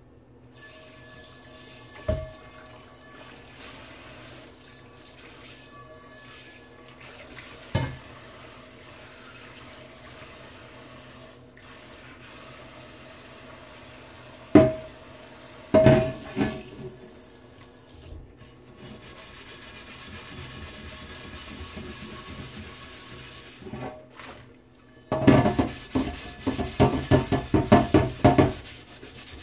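Kitchen tap running into a stainless steel sink while a cast iron frying pan, stripped in a lye bath, is rinsed under it. The pan knocks against the sink a few times. Near the end it is scrubbed by hand in quick strokes, about three or four a second.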